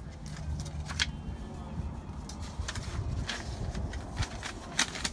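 Irregular sharp clicks and rustles from a plastic document folder being handled on a car seat, over a low rumble.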